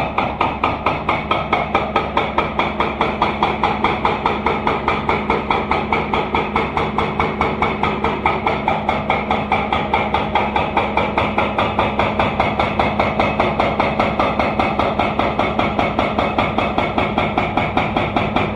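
Excavator-mounted hydraulic breaker hammering in rapid, even blows, about four to five a second, with a steady low hum underneath.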